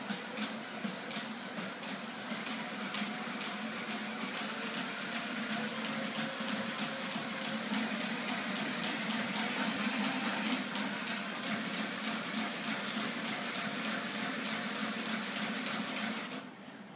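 Homemade magnet-driven ornithopter mechanism running: an electric motor turns the crank and the two board wings flap rapidly, making a steady rushing whoosh with fast ticking rattles through it. It stops about sixteen seconds in.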